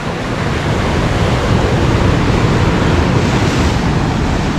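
Sea waves breaking and washing over a rocky shore in a steady surge, with wind rumbling on the microphone.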